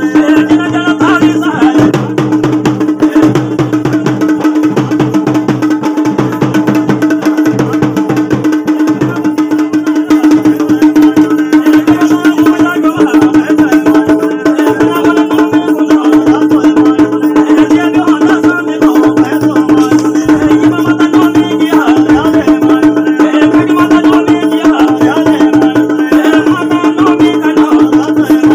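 Garhwali mandan folk music: fast, dense beating on traditional drums, the dhol and damau, over a steady droning tone.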